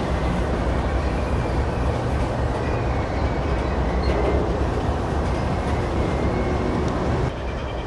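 Double-stack intermodal well cars rolling past on the rails: a steady noise of steel wheels and cars in motion, with faint thin squeals coming and going. The sound drops suddenly near the end.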